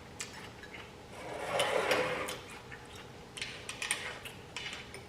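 Close-miked eating sounds: wet chewing with small mouth clicks and smacks, and a softer swell about two seconds in.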